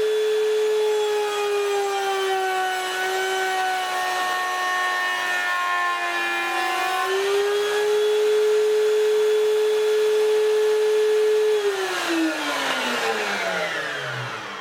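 Electric router running at full speed with a steady high whine. Its pitch sags for about five seconds as a bearing-guided cutter takes a cut in wood, then recovers. Near the end the power is cut and the motor winds down in a long falling whine.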